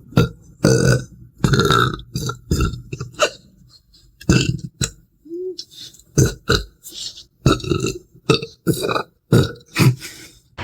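A person burping over and over: a fast run of loud burps, some short and some drawn out, with brief gaps between them and a quieter lull about halfway through.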